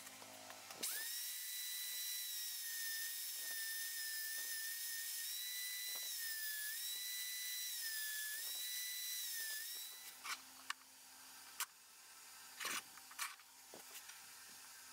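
Small belt sander with a medium-grit belt spinning up about a second in, then running with a steady high whine and hiss as a steel knife blank is ground on it, its pitch dipping slightly a few times under the load. It stops about ten seconds in, and a few light clicks and taps follow.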